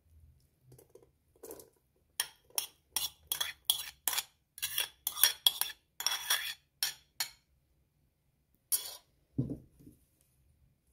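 A metal spoon scraping and clinking against a ceramic plate in a quick run of strokes, about two or three a second, as rice is scraped off it, with one last scrape near the end, then a single dull knock as the plate is set down.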